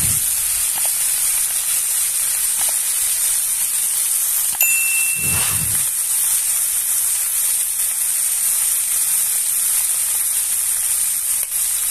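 Beef rib pieces searing in hot lard in a cast-iron pan: a steady, even sizzle of meat frying as it browns.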